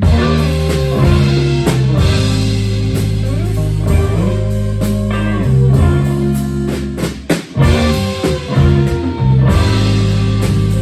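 Live band playing an instrumental passage: two saxophones over electric guitar, bass and drum kit, without vocals. The band drops out for a moment about seven seconds in, then comes back in.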